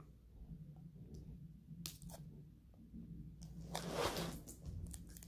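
Plastic wrapper of a Slim Jim meat stick being bitten and pulled at to tear it open: scattered short crinkles, with a louder crinkling tear about four seconds in.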